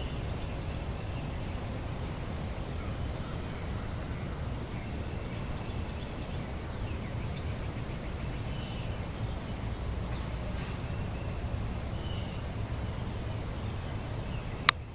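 A steady, deep, distant rumble, the uploader's "loud rumbling", which she takes for jet engine testing at a nearby military base. Faint bird chirps can be heard over it, and a few sharp handling clicks come right at the end.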